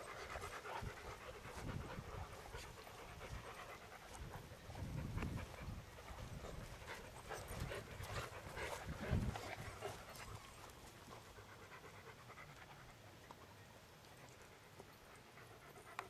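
A dog panting close by, with low thuds now and then. It grows quieter after about ten seconds.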